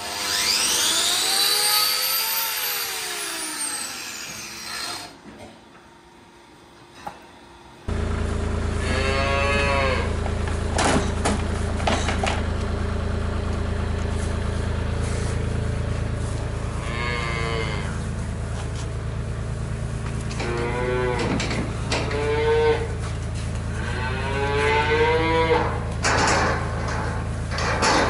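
Holstein calves bawling, about five separate calls spread over the last twenty seconds, over a steady low hum. Before that, a cow gives one long moo that rises and falls in pitch.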